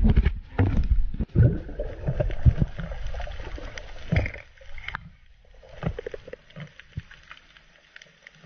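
Water sloshing and gurgling over an underwater camera during a spearfishing dive, with many small clicks and knocks, getting quieter after about five seconds.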